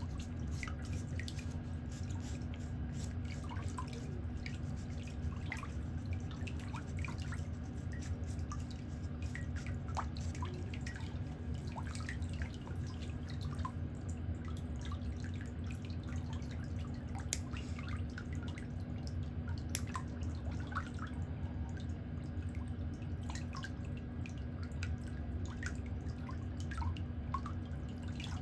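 Scattered water drips and small ticks over a steady low hum, with two sharper clicks a couple of seconds apart past the middle.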